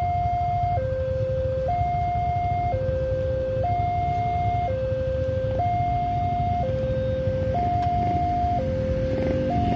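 Railway level-crossing alarm (the 'Alarm Indonesia' siren) sounding for lowered barriers as a train is due: an electronic two-tone signal switching between a higher and a lower pitch about once a second. A steady low rumble runs beneath it.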